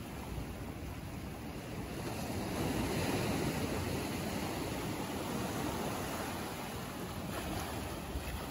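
Sea surf washing against a rocky shore: a steady wash of water that swells for a moment about three seconds in.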